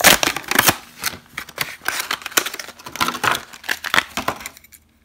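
Plastic blister pack of a die-cast toy car being pulled and torn off its cardboard backing, with quick irregular crinkles and crackles that stop about four and a half seconds in.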